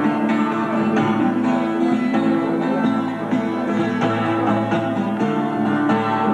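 A live rock band playing an instrumental break between sung verses, with guitar to the fore over a steady run of sharp rhythmic hits.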